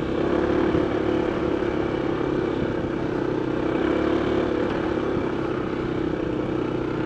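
Honda ADV 160 scooter's single-cylinder engine running steadily at cruising speed, a constant hum under a hiss of wind and road noise.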